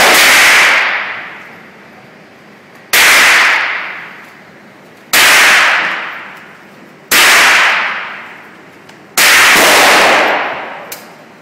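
Single gunshots fired on an indoor shooting range, one about every two seconds. Each crack is followed by a long echo off the range walls that dies away over about a second.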